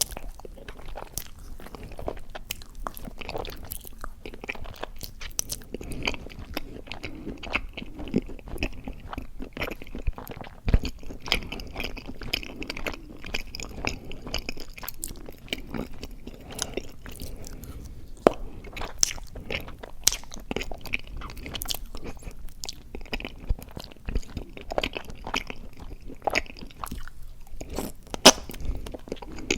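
Close-up chewing of mochi ice cream: sticky, wet mouth sounds with many small clicks and smacks and a few louder snaps.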